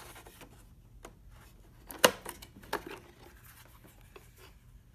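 Plastic clicks and handling rustle from the wired remote control of a Vivitar 5000AF slide projector being taken out of its storage bay and handled. A sharp click about two seconds in, and a second, softer one just under a second later.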